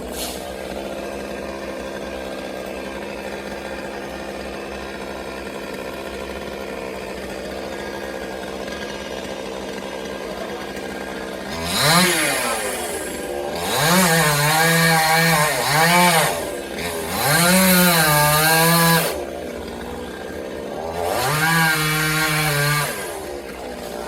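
Chainsaw engine running steadily, then from about halfway revved hard in four bursts, each rising and falling, as it cuts into a coconut palm trunk.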